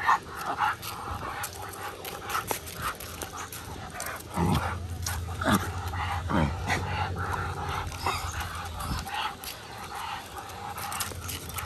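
Two American pit bull terriers pulling hard on their leashes, with dog vocal sounds including a few short falling calls around the middle. Short clicks and scuffs of walking on a concrete path run throughout.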